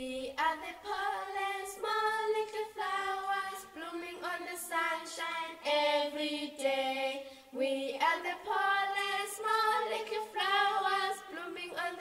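Voices singing a cappella, a melody of held high notes with no instruments behind them.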